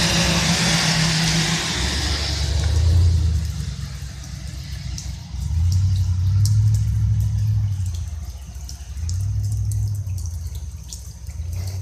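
A car passes on a wet road, its tyre hiss fading over the first three seconds. Slow low rumbles swell and die away several times after it.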